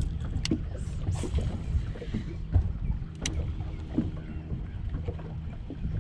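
Wind on the microphone and water lapping at the boat's hull make a steady low rumble with a faint hum underneath. A few short, sharp clicks stand out, one about half a second in and one a little past three seconds.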